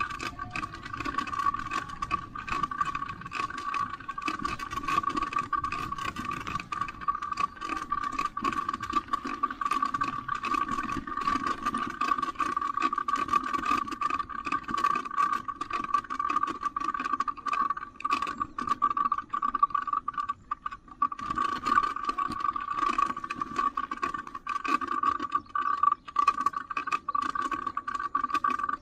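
Bicycle and handheld camera rattling and clicking as the bike rides over a rough road, with a steady high whine underneath. The rattling eases briefly about two-thirds of the way through.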